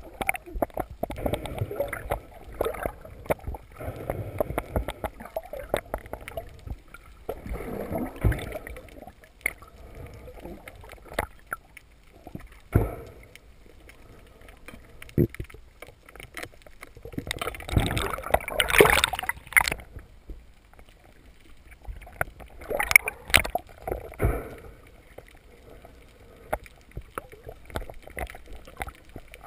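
Water sloshing and bubbling around a snorkeling spearfisher's camera, irregular and muffled, with two louder rushing surges about two-thirds of the way through and again a few seconds later.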